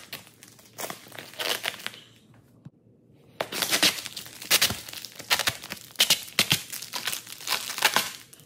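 Thin plastic protective film (XPEL Tracwrap) being peeled off a car body and crumpled in the hand, making dense, irregular crinkling and crackling with a lull of about a second before the middle.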